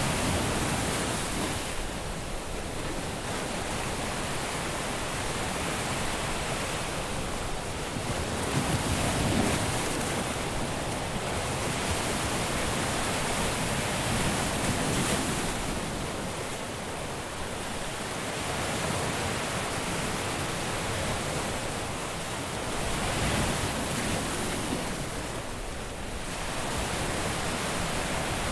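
Caribbean surf breaking on a beach: a continuous wash of waves that swells and ebbs every few seconds, with several stronger breakers.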